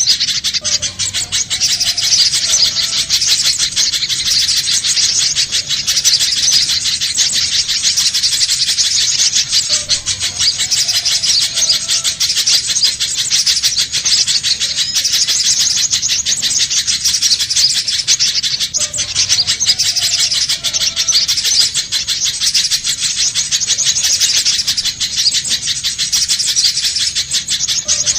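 Little spiderhunter calling a fast, unbroken run of high chips. The same stretch of calling repeats about every nine seconds, as a looped recording.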